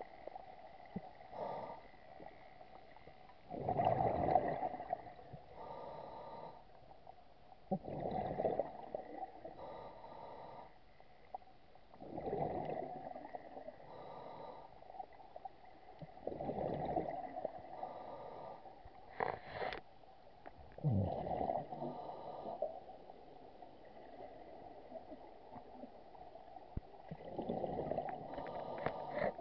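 Scuba diver breathing through a regulator underwater: a quieter inhale with a faint whistle, then a louder rush of exhaled bubbles, repeating about every four seconds.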